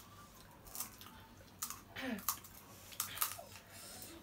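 A few sharp clicks and crunches as crisp pani puri shells are cracked open and filled, with a hand dipping into a steel bowl. A brief voiced sound comes twice, near the middle and later on.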